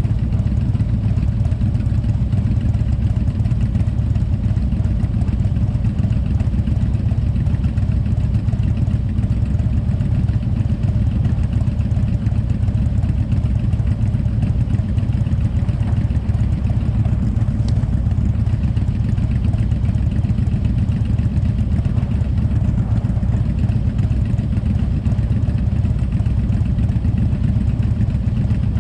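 Motorcycle engine running steadily, a low drone that holds the same level and pitch throughout.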